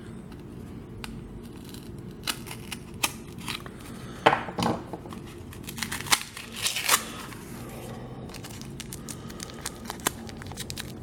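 Packaging being opened by hand: irregular crinkling, tearing and snipping of paper, tape and card, with a few sharp clicks, over a low steady hum.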